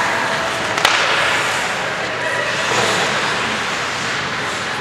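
Ice hockey rink noise: skates scraping on the ice and spectators' voices, with a single sharp crack of a stick on the puck about a second in.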